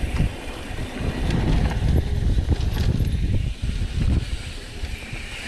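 Mountain bike riding downhill on a dirt singletrack: wind buffeting the bike-mounted camera's microphone over tyre rumble, with occasional light clicks and rattles from the bike.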